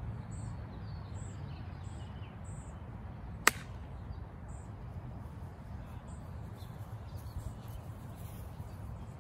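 Golf iron striking the ball on a full swing: one sharp click about three and a half seconds in.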